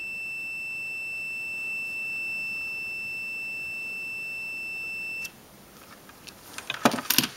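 Mastech MS8268 multimeter's continuity buzzer giving a steady high-pitched beep, the sign of continuity through a good blade fuse. It cuts off suddenly about five seconds in as the leads come off, followed by a few clicks from the lead clips and fuse being handled.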